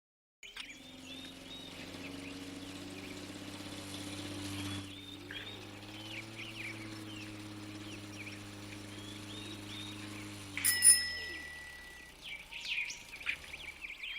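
Birds chirping and tweeting over a steady low hum. The hum fades away about eleven seconds in, just after a single sharp, bright hit that rings briefly.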